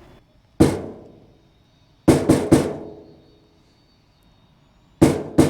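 A platform rubbish bin struck by hand, giving six sharp, ringing hits: one, then a quick run of three, then two close together near the end.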